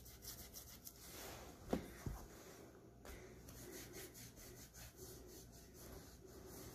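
Faint rubbing of a lemon piece coated in baking soda scrubbed against the sole of a bare foot, with a couple of soft knocks about two seconds in.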